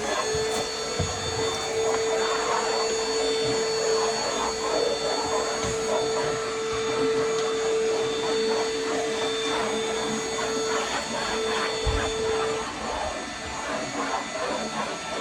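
Vacuum cleaner switched on just as the sound begins, its motor spinning up to a steady whine, sucking pet hair out of a desk. The whine falters about 12 seconds in and comes back near the end.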